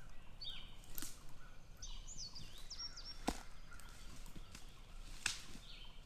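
Wild songbirds singing short whistled phrases of stepped, sliding notes, with three sharp clicks, the loudest just past halfway through.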